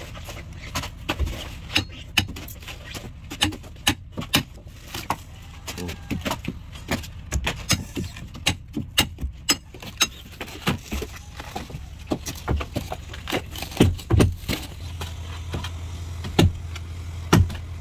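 Irregular knocks and metallic clinks of hand tools working on a wooden fishing boat's cabin and hold, which are being taken apart. Underneath is a low steady hum that gets louder near the end.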